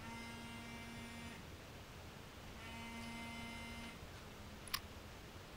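Mobile phone vibrating on an incoming call, buzzing in pulses of about a second and a quarter with pauses of about the same length: two clear buzzes and a fainter third. A short sharp click near the end.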